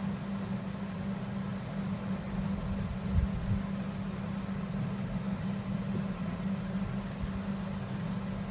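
A steady low electrical or fan-like hum, with a soft bump about three seconds in and a few faint high ticks.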